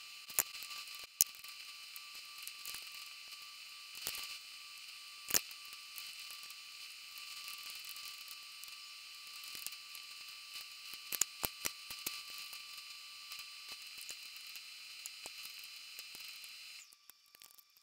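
A metal fork clinking and scraping against a glass baking dish while roast chicken is pulled apart by hand, heard as a scatter of sharp clicks. Underneath runs a steady high hiss that cuts off suddenly near the end.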